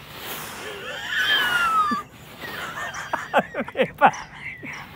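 A man breaking into wheezing laughter: a long breathy squeal that falls in pitch, then a run of short, quick bursts of giggling.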